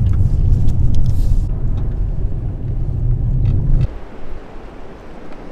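Car driving over a rutted dirt road, heard from inside the cabin: a loud low rumble of tyres and suspension with scattered knocks. It cuts off suddenly about four seconds in, leaving a quieter, even outdoor hiss.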